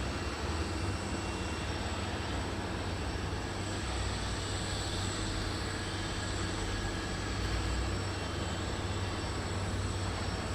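Jet aircraft engines running at an airport: a steady low rumble with hiss and a thin, steady high whine.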